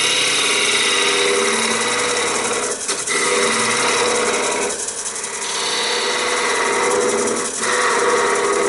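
Wood lathe running while a small turning tool cuts into the spinning wooden egg cup blank, a steady scraping rasp over the lathe's hum. The rasp drops away briefly three times as the tool is eased off between cuts.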